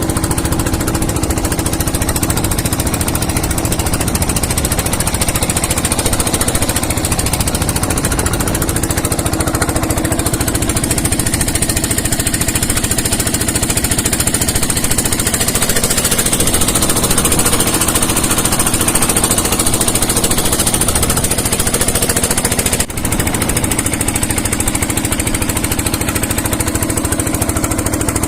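Motorcycle engine running steadily under way, with a fast, hard rattle. The sound drops out for a moment about 23 seconds in.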